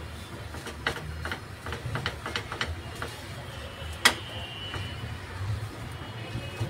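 A spatula knocking and scraping against a non-stick frying pan while a soft chicken-and-mashed-potato mixture is stirred and pressed: a run of short knocks, then one sharp louder knock with a brief ring about four seconds in. A low steady hum sits underneath.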